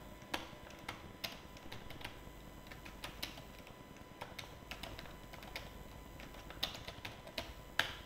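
Typing on a computer keyboard: quiet key clicks at an irregular pace.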